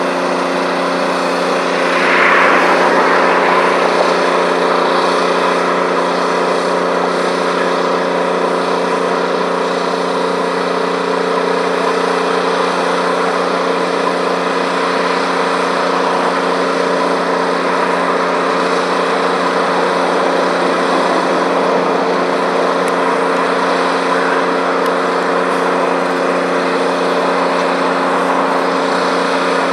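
Diesel engines of streamlined EMD F-unit locomotives pulling a passenger train, giving a steady droning hum as the train approaches. There is a brief louder swell about two seconds in.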